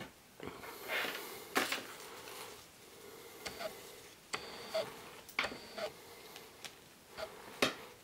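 Handling noise from a steel watch and the metal buckle and keepers of a fabric NATO strap being fitted to it: about a dozen light metallic clicks and clinks, some with a short ring, with rustling in the first couple of seconds.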